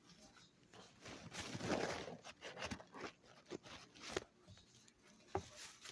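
Close handling noises: a stretch of rustling followed by several sharp clicks and knocks.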